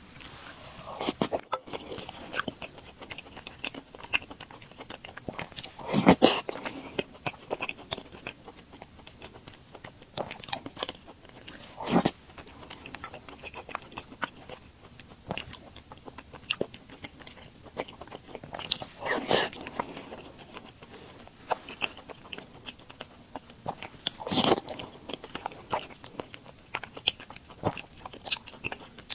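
Close-miked eating: chewing of soft glutinous rice balls (tangyuan) in sweet soup, with small wet mouth sounds and a louder short eating sound every few seconds.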